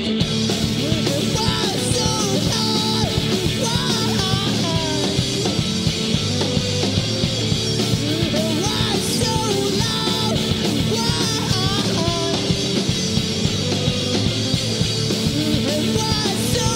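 Live rock band playing loud: two electric guitars, electric bass and a drum kit with cymbals, with a steady beat and a lead line bending up and down in pitch.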